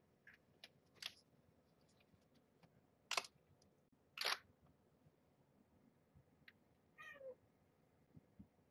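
A young kitten gives one short mew that falls in pitch, about seven seconds in. Before it come a few brief soft scratchy noises, the two loudest about three and four seconds in, over a near-silent room.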